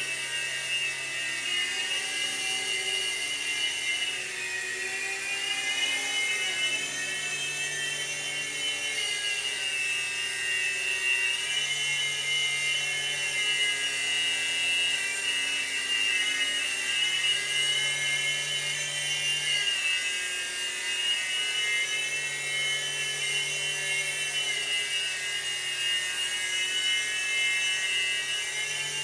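Revell Rotobot 3-channel micro RC helicopter in flight: its small electric motors and rotors give a steady high whine whose pitch drifts up and down a little as it flies.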